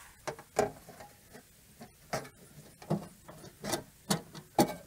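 Steel breaker-panel cover being fitted back onto a main electrical panel: a string of irregular light clicks, taps and knocks of metal against metal.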